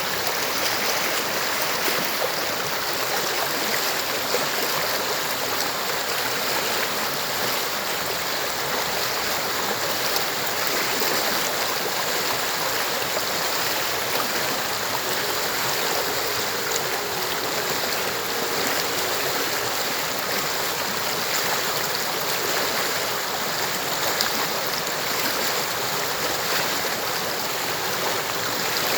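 Stream water flowing steadily: a constant, unbroken rush of water with no pauses or single splashes.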